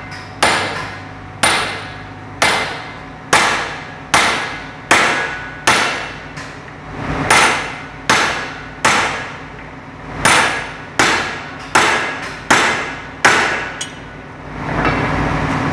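Steel hammer striking a truck driveshaft's yoke, about sixteen ringing metal-on-metal blows roughly one a second, stopping near the end. The blows are driving a worn universal-joint bearing cup out of the yoke, which has already started to come out.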